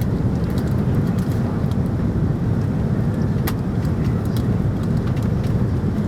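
Steady low rumble of an Airbus A330-300 airliner during its landing at Malé, with scattered light clicks and rattles.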